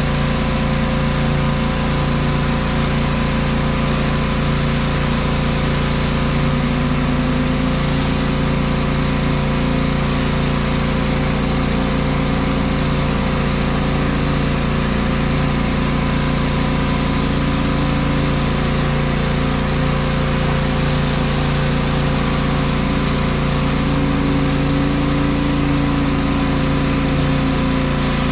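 Pressure washer engine running steadily, with the hiss of water jetting from a rotary surface cleaner onto concrete.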